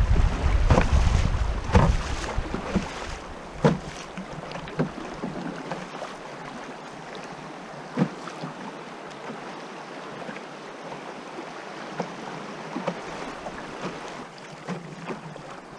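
River water rushing over shallow riffles around a canoe, a steady hiss. Wind buffets the microphone with a low rumble for the first three seconds or so, and a few sharp knocks come through, the clearest about four and eight seconds in.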